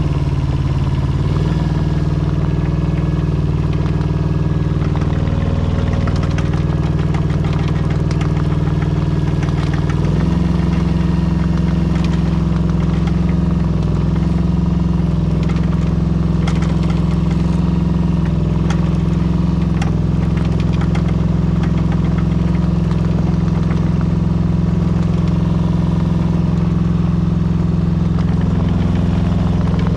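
Daewoo Solar 010 mini excavator's small Yanmar diesel engine running steadily as the machine tracks over snow. Its note shifts slightly about a second in and rises a little about ten seconds in.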